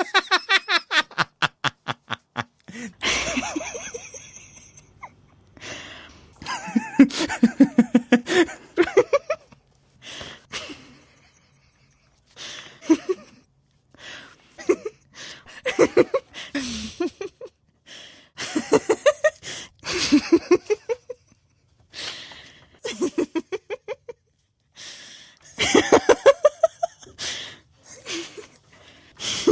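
A woman giggling and laughing in a series of bouts, each a run of quick pitched "ha" pulses lasting one to three seconds, with short breaths and pauses between them.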